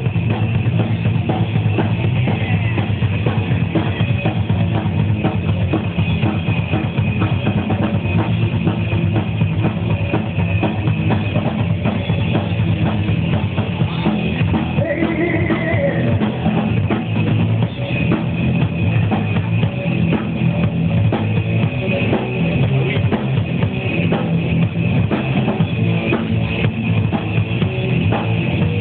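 A rock band playing live, with a steady drum kit beat under guitar. The sound is dull, with no high end.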